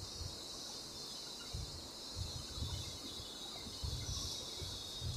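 Quiet room background: a steady high hiss with faint low rumbles coming and going.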